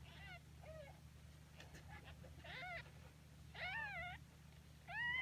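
Newborn kitten mewing: a series of short, high, thin cries that get louder, the loudest near the end.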